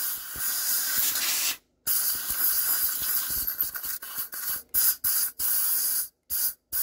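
Compressed-air blow gun hissing as it blows dust and grit out of an old engine's carburettor: two long blasts, then several short bursts near the end.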